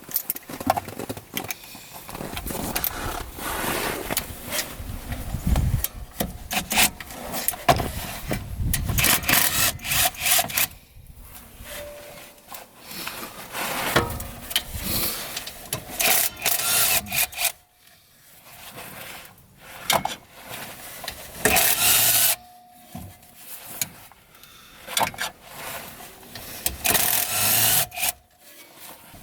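Ratchet wrench on an extension working the bolts of a UTV engine cover: spells of rasping back-and-forth strokes, with short pauses between them.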